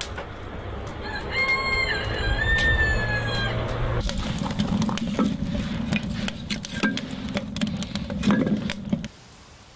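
A rooster crows once, a drawn-out call in stepped pitches, from about one to three and a half seconds in. After that, split firewood clatters and knocks as it is laid into a round steel stove's firebox, with a loud knock shortly before the sound cuts off abruptly near the end.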